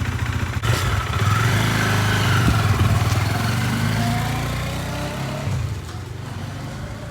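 Bajaj Dominar 400's single-cylinder engine running just after being jump-started from a car battery, growing gradually quieter over the last few seconds.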